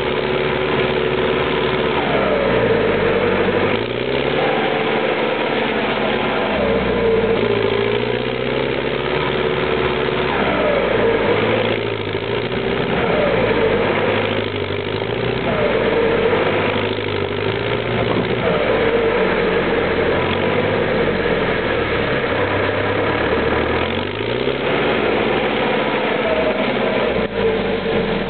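Belarus MTZ-1025 tractor's diesel engine working under heavy load, its revs rising and falling over and over as the tractor struggles through deep mud.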